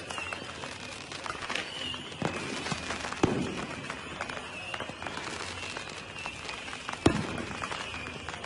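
Aerial fireworks shells bursting: several separate bangs, each with a short echo after it. The loudest come about three seconds in and just after seven seconds, with lighter pops between them.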